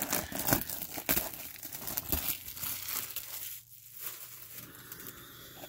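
Plastic shrink wrap being torn and crumpled off a trading-card hobby box, a dense run of crinkling for about three seconds that then fades to lighter handling of the plastic.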